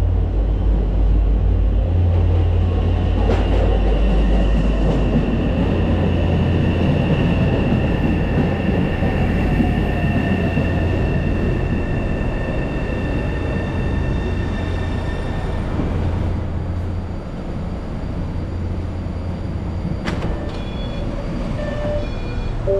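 MBTA Orange Line subway train pulling into the station: a heavy low rumble with a steady high whine over it, easing off as the train slows and stops about two-thirds of the way in. After that it is quieter, with a sharp click and a few short tones near the end.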